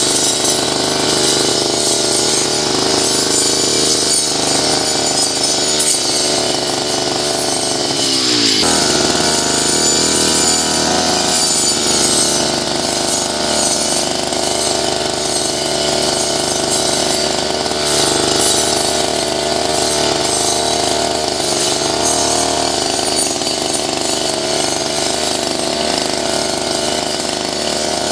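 Backpack two-stroke brush cutter running at high speed, its round metal blade cutting through weeds and grass. The engine note holds steady apart from a brief drop in pitch about eight seconds in.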